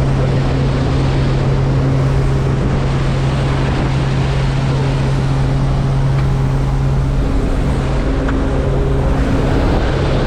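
A steady motor drone: a constant low hum over an even rushing noise, unchanging throughout.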